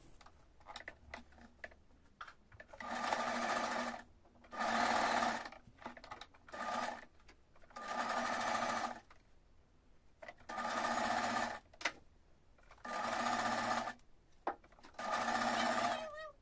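Household electric sewing machine stitching ribbon trim onto a dress in six short runs of about a second each. There are brief pauses with small clicks between the runs.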